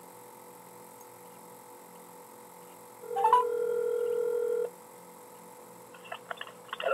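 A single steady electronic tone starts about three seconds in and holds for about a second and a half, over a faint steady hum.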